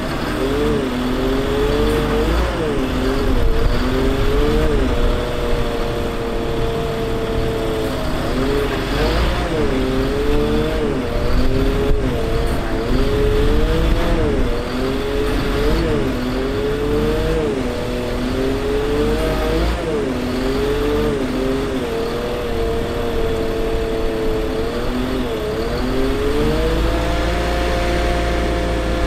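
Bucket truck's Caterpillar C7 diesel and engine-driven hydraulic system running while the aerial boom is worked, making a steady pitched drone. Its pitch rises and dips again and again, about once a second, and near the end it climbs and holds steady.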